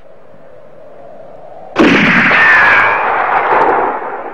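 Rapid revolver gunfire breaks out suddenly a little under two seconds in. The shots come so fast that they run together into one loud volley lasting about two seconds, then die away.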